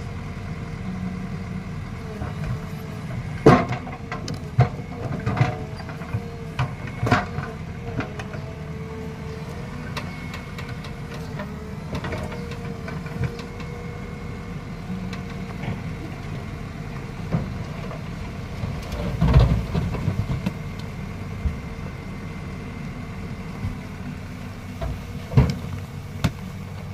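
Diesel engines of a Tata Hyva tipper truck and a JCB 3DX backhoe loader running steadily while the truck's hydraulic tipper raises its loaded body. A few sharp knocks break through now and then, the loudest about three and a half seconds in, again around the middle and near the end.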